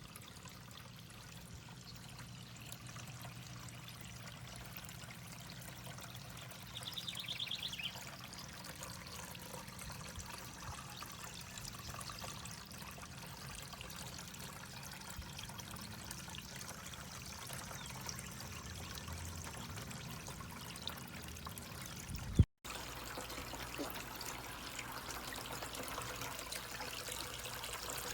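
Feng Shui Import Glenville cascading water fountain running, its pumped water trickling steadily down the tiers. A brief higher sound comes about seven seconds in, and a sharp click with a short dropout about three-quarters of the way through.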